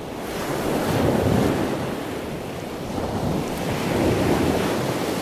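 Rough surf breaking on a sandy beach, with strong wind buffeting the microphone. The wash swells about a second in and again around four seconds.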